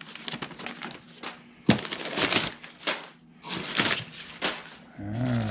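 Packing material rustling and crinkling as a parcel of parts is unpacked by hand, with a sharp knock about a second and a half in.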